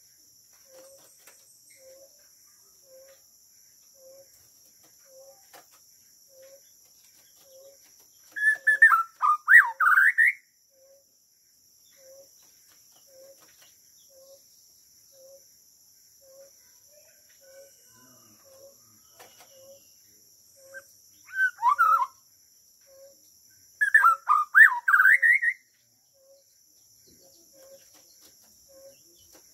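White-rumped shama singing three short bursts of quick, rising warbled phrases: one about eight seconds in, a brief one past twenty seconds, and another a few seconds after that.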